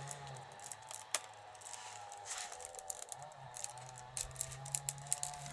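Willow rods and sticks clicking and creaking in the hands as they are woven into a wicker basket under repair: small irregular clicks, busier in the second half.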